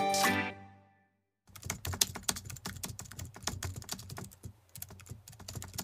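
A music cue fades out in the first second. After a brief gap, computer-keyboard typing follows: quick, uneven clicks, several a second.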